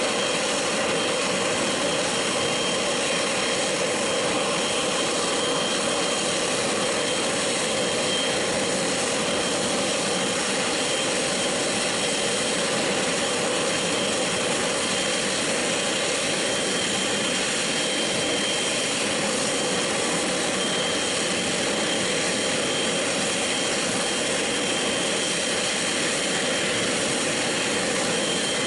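Boeing 777-300ER's GE90 turbofan engines running at idle thrust as the airliner taxis in: a steady jet rush with a thin high whine held over it.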